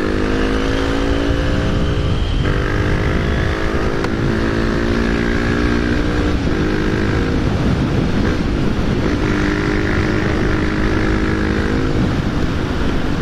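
Honda XR250 Tornado's single-cylinder four-stroke engine running at speed through an aftermarket Belparts exhaust, its note climbing slowly and dropping back several times as the throttle and gears change. Heavy wind rush over a helmet-mounted microphone with the visor slightly open.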